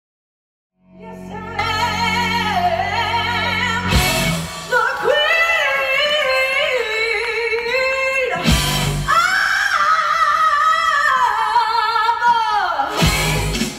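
A woman singing long held notes with a wide vibrato over a musical backing that comes in about a second in, with deep drum hits about every four seconds.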